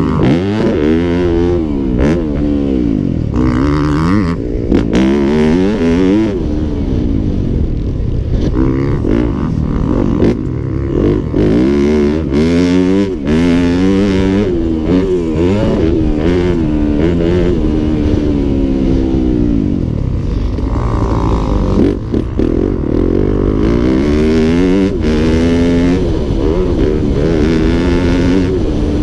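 Dirt bike engine heard onboard, revving up and falling back again and again as the rider accelerates and shifts through the gears.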